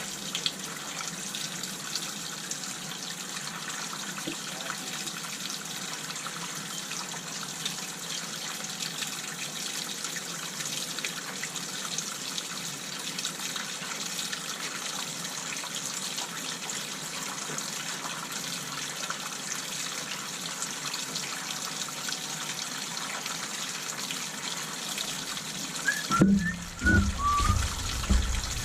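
Water running steadily from a tap with the hot and cold just turned on in a freshly repiped house, a constant rushing hiss. A louder burst of sound breaks in near the end.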